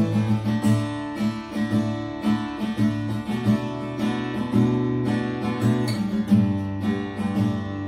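Gopher Wood G520ce acoustic guitar being played, a continuous run of plucked and strummed chords and notes ringing out.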